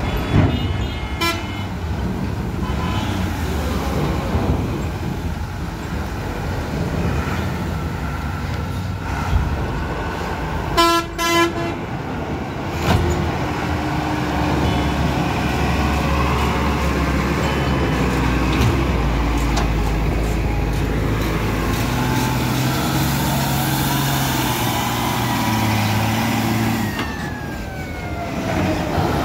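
Heavy truck diesel engines running as loaded trucks drive off a ferry. Vehicle horns honk briefly about a second in and again about eleven seconds in.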